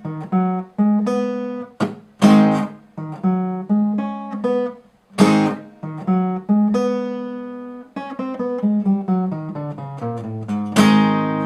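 Guitar playing a slow blues riff in A: strummed chords cut off short by muting, single picked notes between them, and a run of quick notes across the strings, ending on a loud struck A chord near the end.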